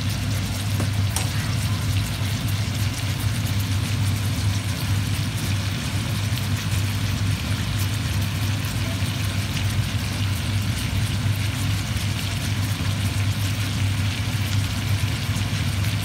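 Two steaks frying with garlic cloves in hot fat in a skillet, sizzling steadily with fine crackles, over a steady low hum.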